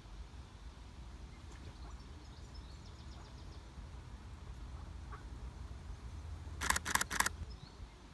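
Nikon Z50 shutter firing three times in a quick burst near the end, over a faint low outdoor rumble and a few faint bird chirps.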